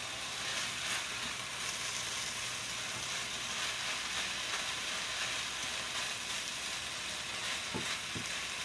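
Thinly sliced marinated beef sizzling steadily in a hot skillet as it is stir-fried, stirred through with a spatula.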